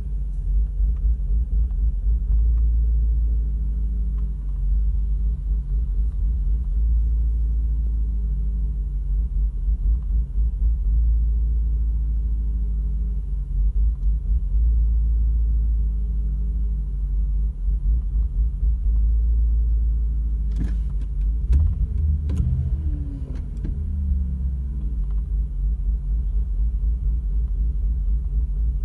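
Audi RS6 C5's 4.2-litre twin-turbo V8 idling unevenly, with a pulsing, wavering rumble: the rough idle it shows on a hot restart. A few sharp clicks come about two-thirds of the way in, followed by a briefly falling tone.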